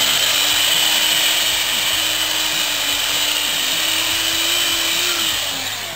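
Corded electric drill running steadily with a high whine, its bit reaming out a hole in a wooden board. The motor winds down near the end.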